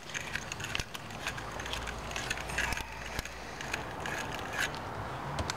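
A hand-held battery terminal cleaning tool scraping and twisting inside a battery cable clamp, a scratchy rasp broken by many small irregular clicks. The inside of the clamp is dull and is being scraped to bare, shiny metal for a good connection.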